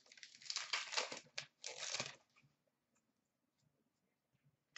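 A hockey card pack's wrapper being torn open and crinkled: two short spells of crackling in the first two seconds.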